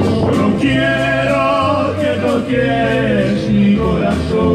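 Live Christian song: a man singing held, wavering phrases over a band with a steady bass line.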